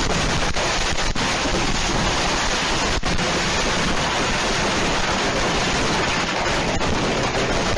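Consumer fireworks going off all at once, a loud, steady hiss and crackle with no single bangs standing out.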